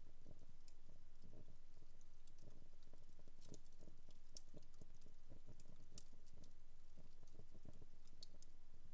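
Wood fire in a home fireplace crackling softly: irregular sharp pops and snaps, several a second, over a low, uneven flutter of the flames.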